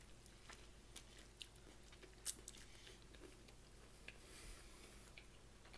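Quiet chewing of food close to the microphone, with scattered small mouth clicks. There is one sharper click about two seconds in and a brief soft hiss a little after four seconds.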